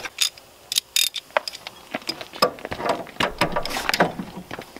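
Hand tools and small metal parts clinking and clicking as they are handled: a string of irregular sharp clicks.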